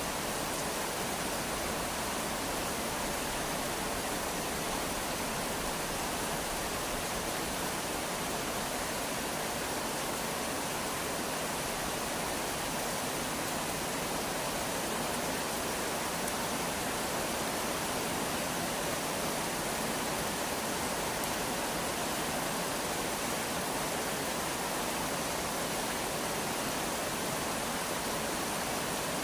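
Steady rainfall: an even, unbroken hiss of rain with no separate drops or thunder standing out.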